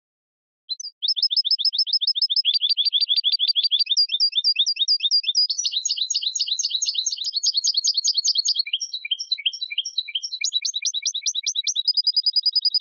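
European goldfinch singing: a long, fast run of twittering notes that keep changing from phrase to phrase, ending in a quick even trill. The song starts just under a second in.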